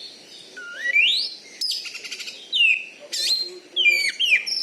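Oriental magpie-robin (kacer) singing: a whistled note rising steeply in pitch, a fast rattling trill about two seconds in, then a run of short, sharp falling whistles near the end.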